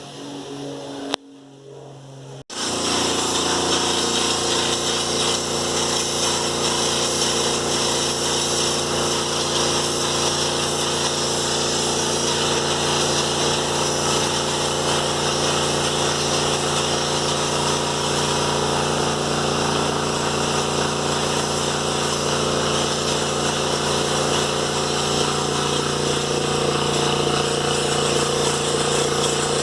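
Compressed-air spray painting: an air compressor running steadily under the continuous hiss of a paint spray gun. It starts abruptly about two and a half seconds in.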